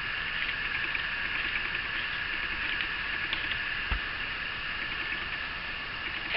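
Light handling noise of a nylon cargo strap and plastic buckle being worked: faint rustling and small clicks over a steady hiss, with one soft thump about four seconds in.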